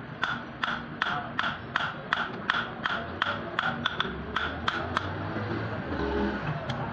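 Blacksmith's hammer striking metal in a steady rhythm of about three ringing blows a second, stopping about five seconds in.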